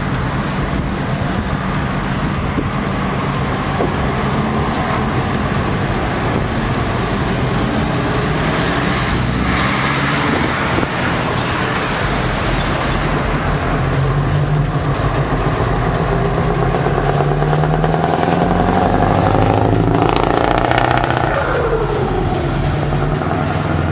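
Scania 144 530's V8 diesel on an open exhaust pipe, pulling away under heavy throttle. The engine note climbs in pitch several times as it accelerates.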